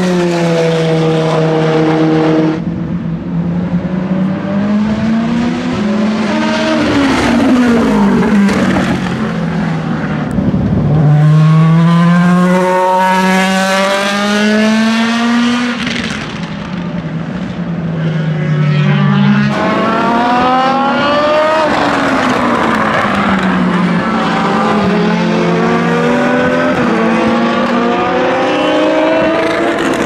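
Racing engines at speed on a circuit, among them the Vanwall Vandervell hypercar's Gibson V8. The pitch climbs as the cars accelerate and drops back as they pass and lift off, with an abrupt change about two-thirds of the way through.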